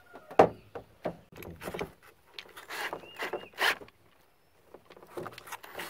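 Irregular knocks and clatter of tools and a plastic PVC cap being handled on a work surface, a dozen or so short sharp sounds with the loudest about half a second in.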